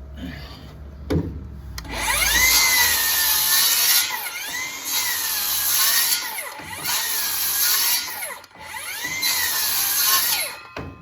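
Milwaukee Fuel cordless worm-drive circular saw making a series of cuts into wood for a half lap joint. It starts about two seconds in. Its whine sags as the blade bites and picks back up between passes, several times over, and it stops near the end.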